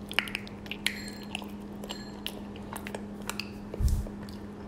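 Biting into and chewing sticky raw honeycomb close to the microphone: scattered small mouth clicks. There is a low thump about four seconds in and a faint steady hum underneath.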